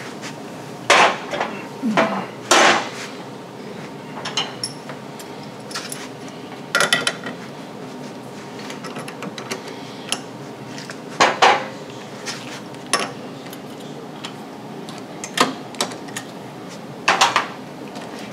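Irregular metallic clanks and knocks of turning tools being handled and set down at a wood lathe, about ten sharp knocks spread unevenly over a steady background noise.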